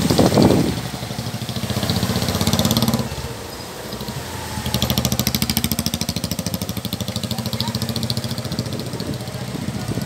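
An engine running at idle with a steady rhythmic beat. It fades for a moment about three seconds in, then comes back. A gust of wind buffets the microphone at the very start.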